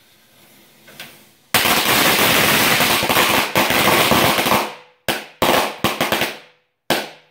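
Firecrackers going off in loud, rapid strings of bangs. A small pop about a second in is followed by a sudden dense run of bangs lasting about three seconds. Several shorter runs come near the end.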